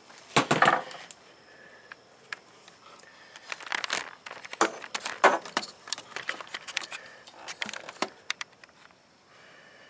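Scattered clicks, taps and knocks of a long steel pry tool poking among the plastic and metal parts of a car's engine bay, with the loudest clatter about half a second in.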